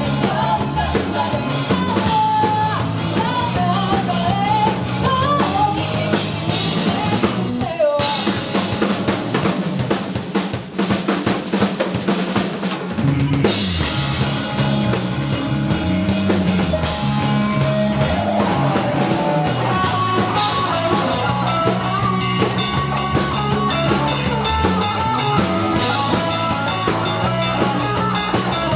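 Loud rock music from a band, led by a driving drum kit with bass drum and snare over bass and guitar. The music breaks off for an instant about eight seconds in, and the arrangement shifts around thirteen seconds.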